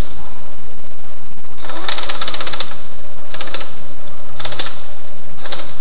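Pneumatic impact wrench rattling in four short bursts, the first about a second long and the other three briefer.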